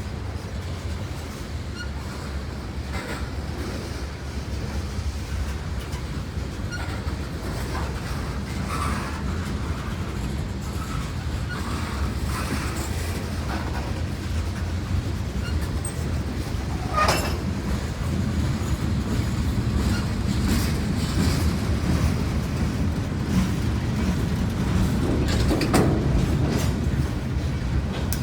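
Long Norfolk Southern freight train rolling past: a steady low rumble with the clack of wheels over rail joints. A brief, sharp metallic sound stands out a little over halfway through.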